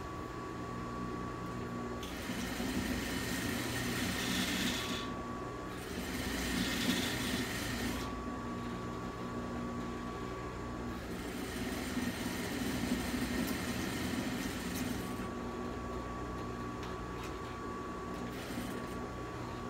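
Industrial sewing machine stitching fabric in several runs of a few seconds each, stopping and starting, with a steady hum in the pauses between runs.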